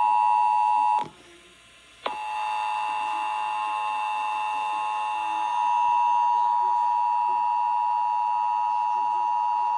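Emergency Alert System attention signal, the steady two-tone alarm of 853 and 960 Hz, sounding as a broadcast station relays a monthly test. It cuts out about a second in and starts again with a click a second later.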